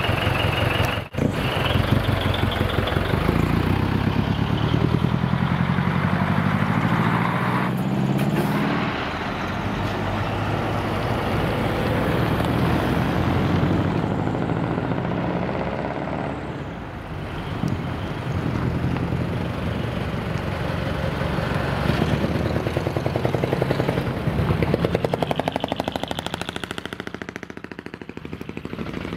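Decorated trucks' engines driving off one after another, the pitch climbing in steps as they pull away through the gears. The exhaust has the loud, rapid pulsing of a manifold-split (mani-wari) open exhaust.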